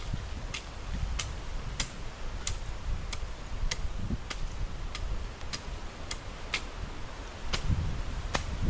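A sharp, high click repeating very evenly, about every 0.6 seconds, over a low rumble of wind on the microphone.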